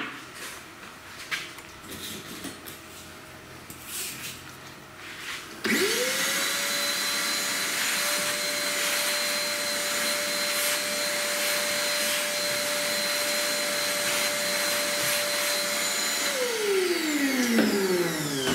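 Vacuum cleaner sucking sawdust out of a carved wooden panel. It starts about a third of the way in, its motor whine rising quickly to a steady pitch. Near the end it is switched off and the whine falls as the motor winds down. Before it starts there are a few light clicks and handling knocks.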